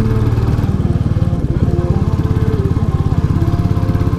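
Royal Enfield Classic 350's single-cylinder engine running under way, with a steady, even pulsing exhaust beat.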